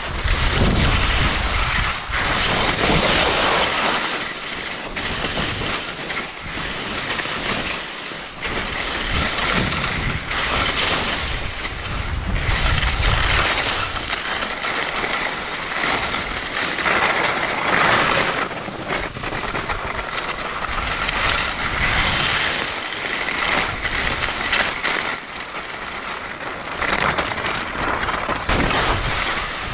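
Skis scraping and hissing over snow on a downhill run, in surges that swell and fade every few seconds. Wind buffets the microphone in low rumbles near the start and again near the end.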